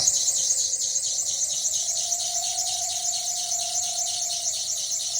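Drive belt on a John Deere 8430 tractor's alternator squealing as it slips on its pulley. A steady squeal with a high, fast-pulsing hiss over it.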